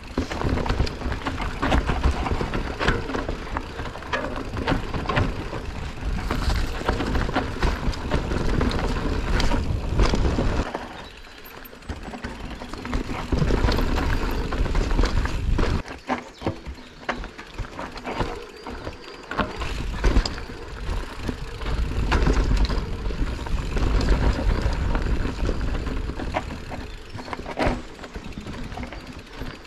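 Mountain bike riding down a dirt trail: tyres rolling over the ground, and the bike rattling with many sharp knocks, over a low wind rumble on the microphone. It goes quieter for a few seconds twice, about eleven and sixteen seconds in.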